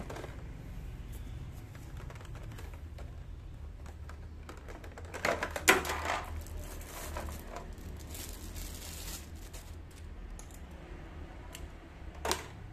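Clicks, taps and light rustling of a hair-clipper's cardboard box and plastic tray being opened and handled, with a loud knock of packaging about six seconds in and another sharp click near the end.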